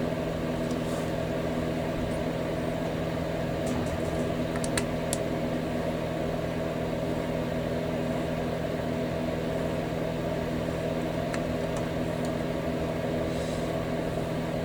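Steady machine hum with several held tones, like a running fan or motor, with a few light clicks about five seconds in and again near eleven seconds.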